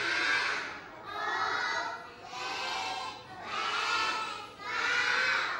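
A class of young children counting aloud together in Thai, calling out one number about every second, five counts in all.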